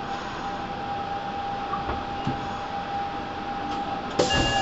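Steady hum and hiss with one constant whine from a stationary Nagoya Municipal Subway 5050 series train standing at an underground platform. About four seconds in, a sudden, louder sound with several steady tones starts.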